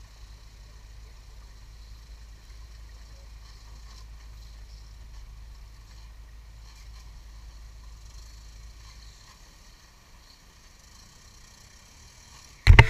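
Off-road rock-crawler buggy's engine running in the distance as it works over the rocks, over a low steady rumble that drops away about nine seconds in. A sudden loud sound cuts in right at the end.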